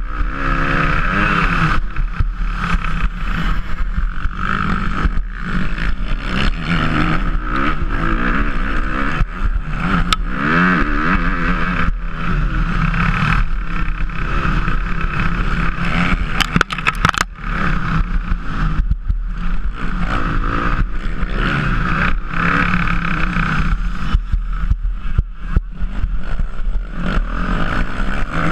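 Motocross bike engine heard from on the bike, revving hard under race throttle. Its pitch rises and falls over and over as the rider shifts and rolls on and off between corners and jumps, with brief cuts where the throttle is shut.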